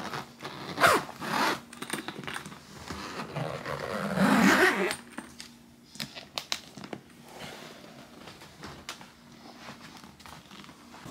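Rustling and scraping handling noises with scattered sharp clicks, swelling about a second in and again around four to five seconds in.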